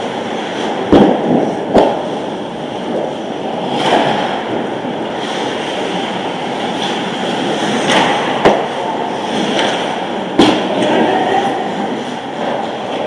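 Ice hockey play: a steady scrape and rumble of skates on the ice, broken by several sharp knocks of sticks and puck, the loudest about a second in and near ten and a half seconds.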